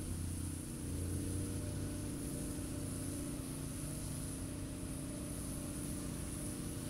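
An engine running steadily: a low, even hum with a steady high hiss above it, and no change in speed.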